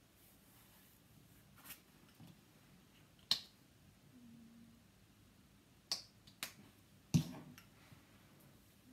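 Handling of an acrylic paint tube and paintbrush: a handful of sharp clicks and taps spread over several seconds, the loudest about seven seconds in.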